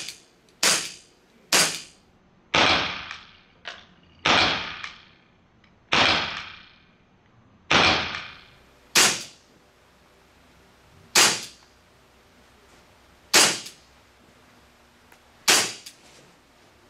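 Elite Force 1911 A1 full-metal airsoft pistol, powered by a 12-gram CO2 cartridge, firing about ten single shots one to two seconds apart. Each shot is a sharp crack with the blowback slide cycling, and several in the middle have a longer fading tail.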